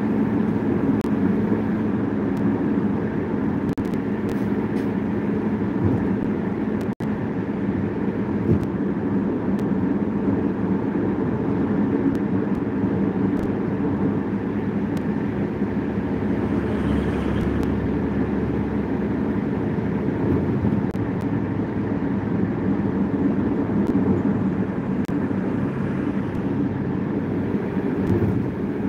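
Road noise inside a moving car on a highway: a steady drone of engine and tyres, cutting out for an instant about seven seconds in. Around the middle a deeper rumble swells for a few seconds as a coach is passed alongside.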